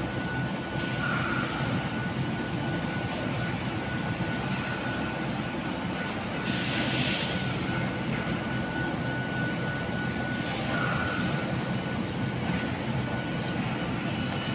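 Steady low mechanical drone with a thin, even high whine running through it, and a brief hiss about seven seconds in.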